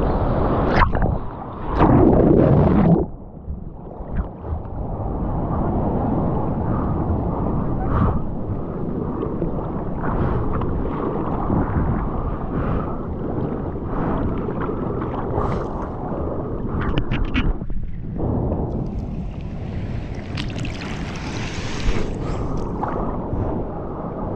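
Seawater sloshing and splashing against a waterproof action camera held at the surface, heard muffled as the housing dips in and out of the water. A loud rush of whitewater washes over it in the first few seconds, then steady sloshing with small splashes, opening up brighter for a few seconds near the end.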